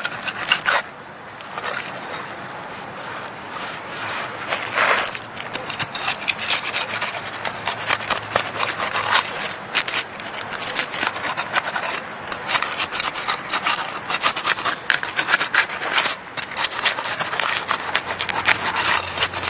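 Flat bar scraping and prying under asphalt shingles, tearing them loose where the heat-sealed adhesive strip has melted them together: a long run of rough, crackling scrapes.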